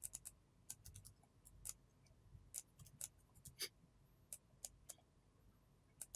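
Faint, irregular clicks of a computer mouse and keyboard keys being pressed as settings are entered.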